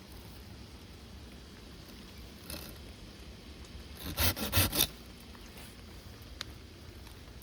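A quick run of four or five scraping strokes about four seconds in, with a fainter scrape a little earlier and a light tick afterwards, over a quiet steady background.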